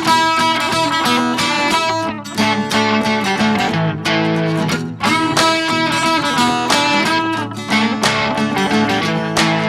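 Background music led by strummed and plucked guitar, with a steady beat.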